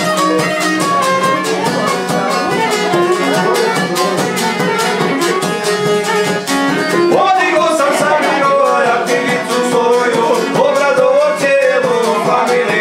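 A violin and a strummed long-necked lute playing a folk tune together. The lute keeps a quick, steady strummed rhythm under the violin's melody.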